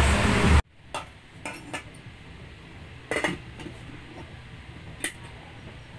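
A stainless steel bowl being handled: a few scattered light metallic clinks and knocks, the loudest about three seconds in.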